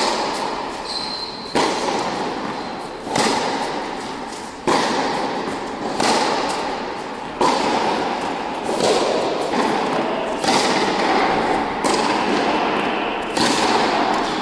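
Tennis ball struck by rackets in a baseline rally, a sharp knock about every one and a half seconds, each shot echoing and fading slowly through the indoor tennis hall.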